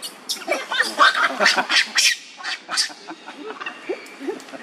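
Macaques calling, a quick run of short, noisy squawks and squeals.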